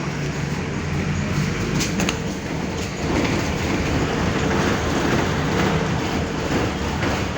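Mercedes-Benz OF-1519 Bluetec 5 city bus under way: a steady diesel engine drone and road noise, with a couple of sharp rattles about two seconds in. It gets a little louder about three seconds in.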